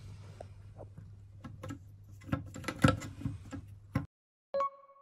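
Irregular small clicks and taps from a cat poking about in a wet porcelain washbasin, over a steady low hum. The sound cuts off about four seconds in, and a single short bell-like ding follows.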